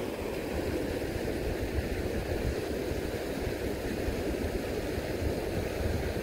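Fast river current rushing steadily: an even watery hiss with a low, flickering rumble underneath.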